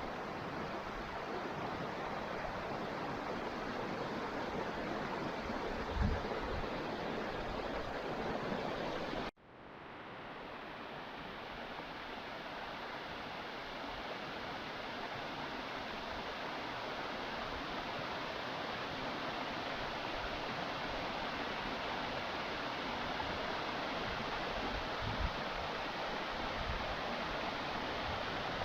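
Steady rushing of water over a waterfall. About nine seconds in the sound cuts out abruptly and fades back in over a second or two.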